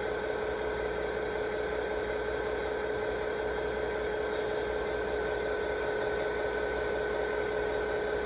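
Steady hum over a constant hiss, with a faint high click about four seconds in.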